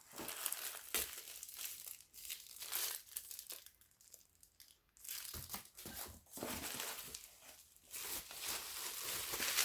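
Packaging crinkling and tearing as a parcel is opened, in irregular bursts with a short lull about four to five seconds in.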